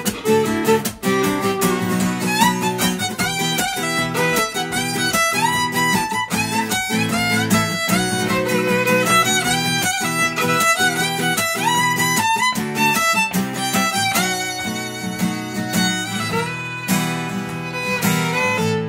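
A violin plays a melody over a rhythmically strummed Lakewood acoustic guitar, as a live instrumental duo.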